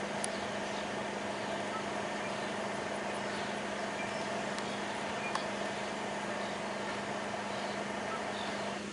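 Freight train tank cars rolling slowly by on curved track: a steady rolling noise from wheels on rail with a low hum and a few sharp clicks. The noise drops off near the end.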